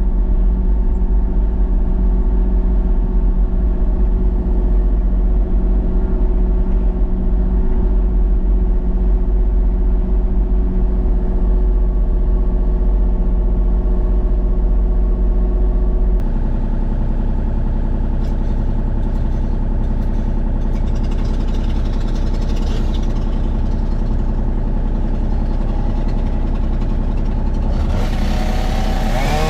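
An engine running steadily at a constant speed, its tone changing abruptly about 16 seconds in, with a brief rise right at the end.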